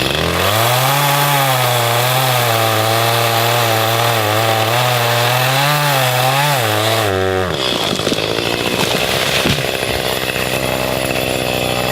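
Chainsaw revved to full throttle and cutting into a dead pine trunk, its engine note wavering up and down as it bogs under load. About seven seconds in the pitch drops away, and a rougher, noisier stretch follows with a sharp knock about nine and a half seconds in.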